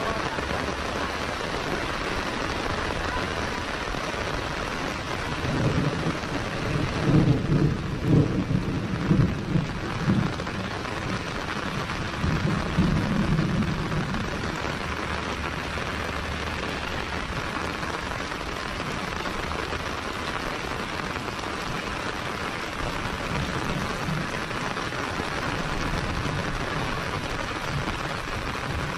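Steady heavy rain falling on a paved road and the surroundings, with a rolling rumble of thunder from about five to fourteen seconds in, loudest around seven to ten seconds, and fainter rumbles near the end.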